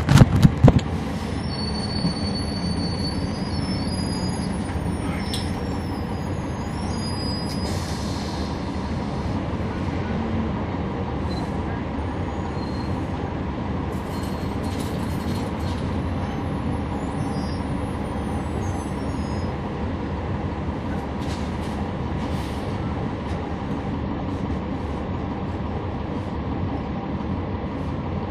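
Inside the cabin of a NABI 40-foot transit bus, its Cummins ISL9 diesel engine runs steadily under a constant rumble of drive and road noise. There are a few loud thumps right at the start. Thin high-pitched squeals sound from about two seconds in to about nine seconds in.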